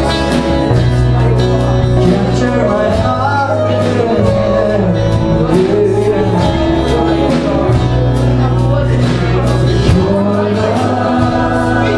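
A worship band playing a slow gospel song, with a voice singing the melody over sustained bass notes and a steady drum beat.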